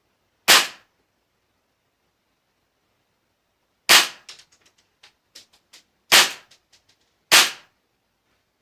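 Tokyo Marui H&K MP7A1 gas-blowback airsoft gun firing four single shots, each a sharp crack. The first shot stands alone, and the other three come a second or two apart near the end. A string of fainter ticks follows the second shot.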